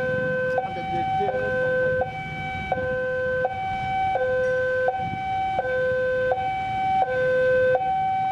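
Electronic two-tone railway warning alarm sounding steadily, a higher and a lower tone alternating about every half second and a bit, as a diesel-hauled train approaches slowly. The locomotive's low rumble runs underneath.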